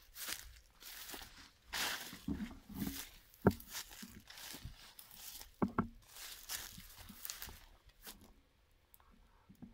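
Footsteps and rustling through dry grass, leaves and brush in uneven bursts, with two sharp snaps, one about a third of the way in and one past the middle. It goes quieter near the end.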